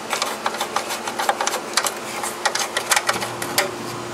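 Ratchet wrench clicking in quick, uneven runs as the 10 mm bolts of the exhaust-manifold heat shield are backed out, over a steady low hum.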